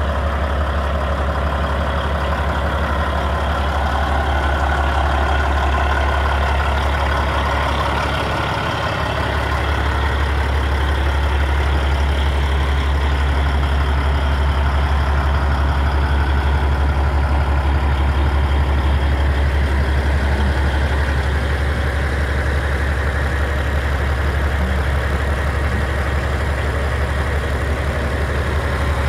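Caterpillar 3406E inline-six diesel in a 1998 Peterbilt 379EXHD idling steadily, a deep, even low rumble.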